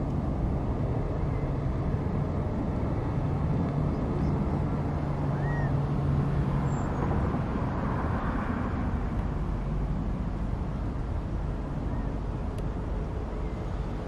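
Steady traffic noise, with a low engine hum for a few seconds and a passing vehicle swelling past about halfway through. Two faint short bird chirps sound over it, one just before the middle and one near the end.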